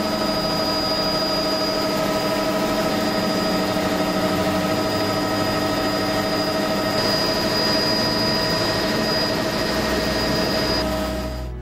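Helicopter in flight, its turbine engine running steadily: a loud, even rush with a high steady whine on top.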